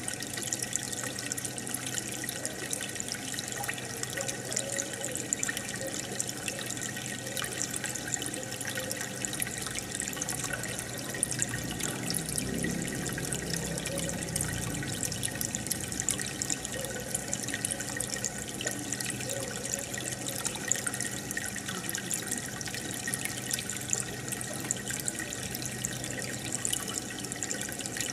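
Aquarium water bubbling steadily as a stream of air bubbles rises through the tank, with many fine pops and trickles and a steady low hum underneath.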